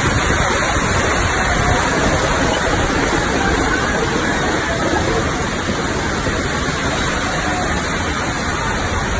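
Floodwater from heavy rain rushing over a road like a river: a steady, loud rush of water.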